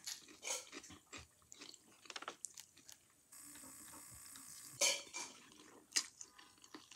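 Close-up eating sounds: a plastic fork clicking against the plate as noodles are twirled, then wet mouth sounds as a forkful of noodles goes in and is chewed.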